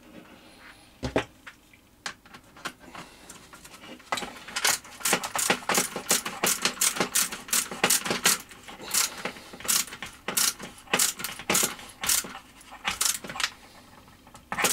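Small metal tool clicking and tapping as a nut driver tightens the SMA antenna's locking nut on the transmitter case: a single knock about a second in, then rapid, irregular metallic clicks from about four seconds in.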